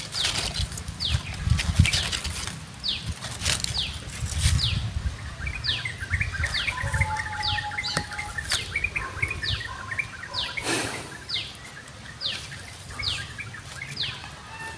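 A bird repeating a short, high, falling call note roughly once a second, with faint chattering in the middle and a low rumble underneath.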